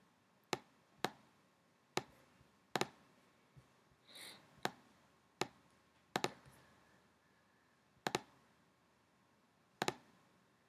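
Computer mouse buttons clicking at irregular intervals, about a dozen clicks with several quick double-clicks among them.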